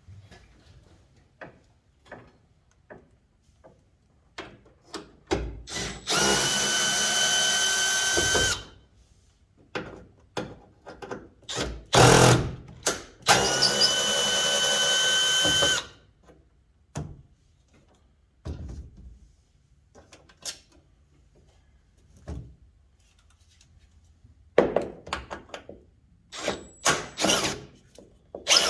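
Power drill running in bursts: two steady runs of about two and a half seconds each and several short blips, with clicks and knocks between them.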